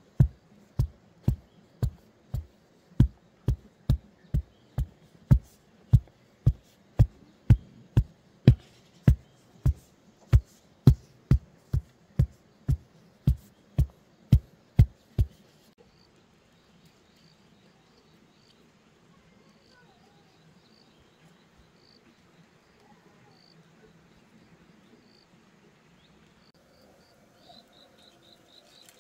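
A wooden pole rammed down into soil again and again, a dull thud about twice a second, tamping earth for a foundation. The thudding stops about halfway through, leaving faint insect chirping.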